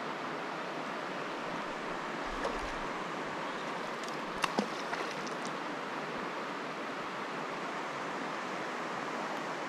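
Steady rush of a mountain river's current running over rocks in shallow riffles, with a couple of brief sharp clicks about halfway through.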